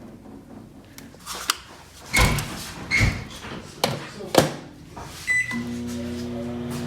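Microwave oven being handled: a series of knocks and thuds of its door and contents, then a short keypad beep about five seconds in, after which the oven starts running with a steady hum.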